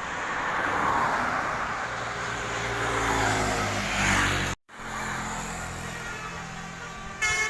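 Bus engine running with road noise as it passes close by, swelling and shifting in pitch; the sound cuts off abruptly about four and a half seconds in and picks up again with the engine running steadily. Near the end a multi-tone telolet bus horn starts to sound.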